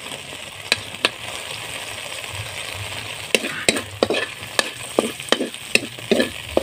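Chopped onion and garlic sizzling in hot coconut oil rendered from coconut milk in an aluminium wok. A spatula clicks and scrapes against the pan, twice early and then often from about halfway through.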